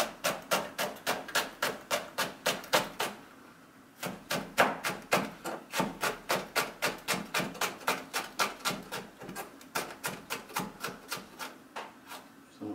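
Chef's knife slicing green pepper thinly on a plastic cutting board. The blade knocks on the board in a fast, even run of about four or five strokes a second, with a short pause about three seconds in.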